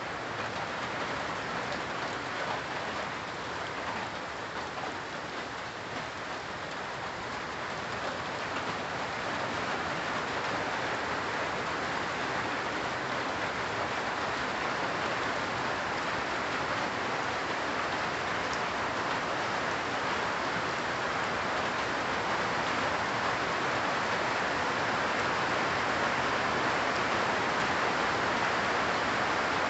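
Steady rain falling on tree and shrub leaves, a dense even patter that grows gradually louder.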